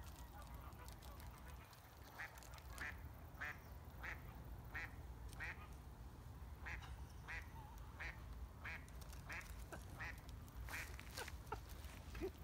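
A duck quacking faintly in a steady series of short calls, about one every two-thirds of a second. A few sharp clicks come near the end.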